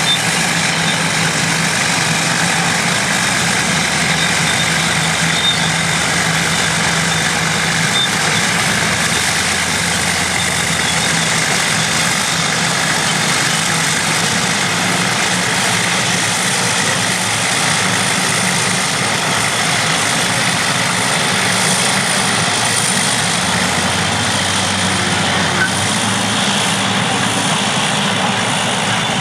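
Vintage pre-1960 bulldozers and scrapers working together, their engines running steadily with heavy machinery noise.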